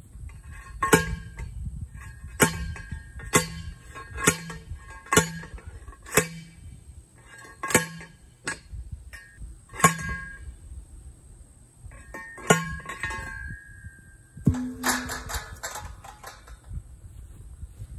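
Manual post driver pounding a steel fence post: about ten sharp, ringing metal clangs, roughly one a second with a longer gap near the end, followed by a short run of lighter metallic clinks.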